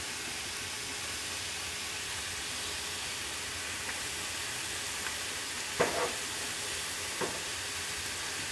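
Chopped vegetables frying on a hot Blackstone flat-top griddle, a steady sizzle as soy sauce is poured over them. Two brief knocks come in the second half.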